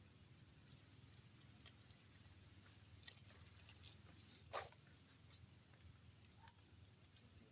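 Night insects chirping faintly: short high chirps, two together and later three in quick succession, over a thin steady high trill. A single sharp click comes about halfway through.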